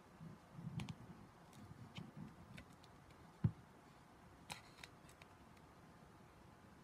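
Faint crackling and ticking of plastic shrink-wrap as its tear strip is pulled off a small cardboard box, with one soft thump about three and a half seconds in.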